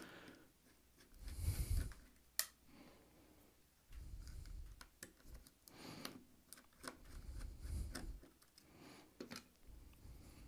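Handling noise from a partly disassembled Square Terminal: scattered light clicks and taps of its plastic and metal parts and circuit board under the fingers, with a few dull bumps as the unit shifts on the bench. The sharpest click comes about two and a half seconds in.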